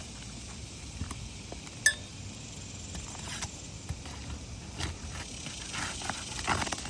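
A metal tool clicks sharply once against the roofing with a brief ring, and old asphalt shingles crackle and scrape as they are pried apart and unsealed, most busily near the end.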